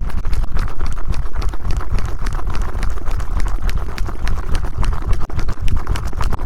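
Fast, aggressive tapping and scratching directly on a TASCAM recorder's microphones: a dense run of sharp clicks over heavy low thumps.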